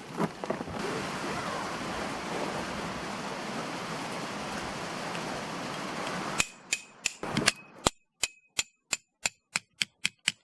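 A steady hiss, then about six seconds in a quick, even run of about fifteen sharp metallic clicks, each with a short ring.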